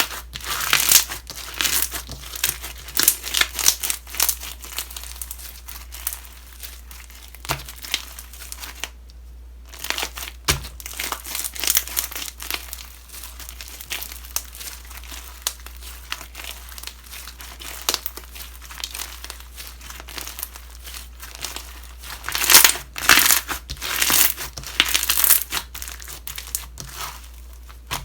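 Slime being squished and stretched by hand, giving irregular crinkly crackles and little pops, with a brief pause about a third of the way in.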